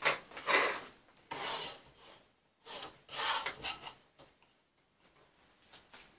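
Circuit boards and a hand sliding and rubbing across a worktop as the boards are moved into place: three scraping swishes of about half a second each in the first few seconds, then only faint handling noise.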